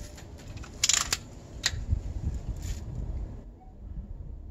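Daisy Red Ryder BB gun's lever being worked to cock it: a quick cluster of sharp metallic clicks about a second in, then one more click shortly after.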